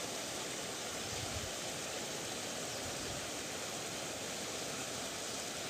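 Steady rushing of water flowing through a concrete irrigation channel.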